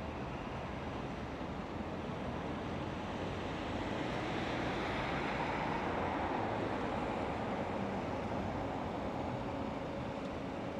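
Street traffic: a passing vehicle's tyre and engine noise swells to its loudest about five seconds in, then fades back into the steady hum of the road.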